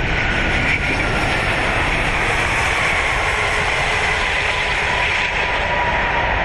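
Airbus A380 on its landing rollout, heard from the flight deck: a steady rumble and rush of the wheels on the runway and airflow just after touchdown.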